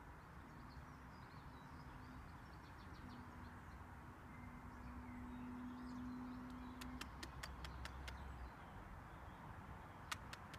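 Faint outdoor ambience with a few faint bird chirps and a low steady hum for several seconds. About seven seconds in comes a quick run of sharp clicks, about five a second, and there is one more click near the end.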